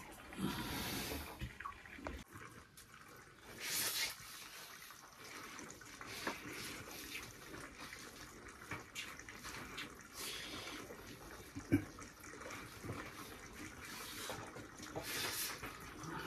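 Water splashing in several short bursts, with one sharp knock about twelve seconds in.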